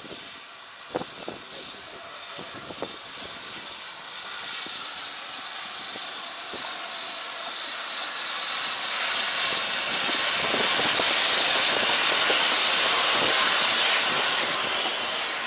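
BR Standard Class 7 'Britannia' steam locomotive No. 70013 approaching and passing close by. A steam hiss builds steadily and is loudest in the last few seconds as the engine draws level, with a few sharp knocks in the first three seconds.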